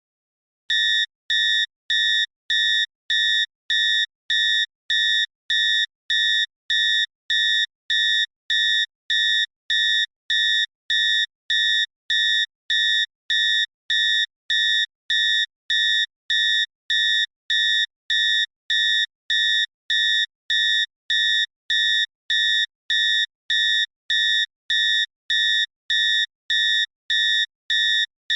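Cockpit warning alarm beeping: a single high electronic tone repeated in short, evenly spaced beeps, about three every two seconds, starting about a second in.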